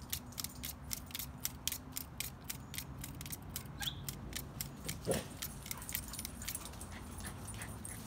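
Light, quick strokes of a stainless pocket-knife blade against a handheld knife sharpener: a fast run of scraping clicks, about six a second, that thins out after about three seconds. These are the light finishing passes that alternate sides of the blade. A dog makes one short sound about five seconds in.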